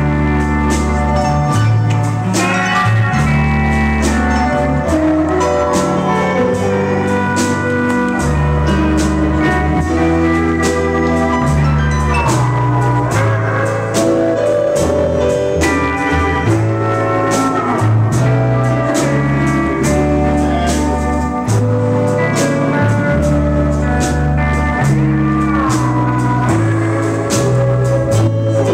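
Country band playing live with no singing: a pedal steel guitar sliding between notes over acoustic guitar, keyboard, a stepping bass line and drums.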